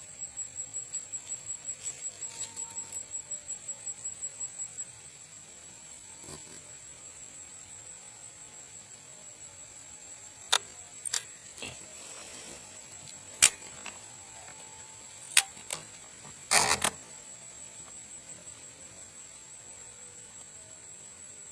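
High-pitched insect trill, pulsing rapidly for about the first five seconds and then running on as a steady tone. Several sharp clicks come in the second half.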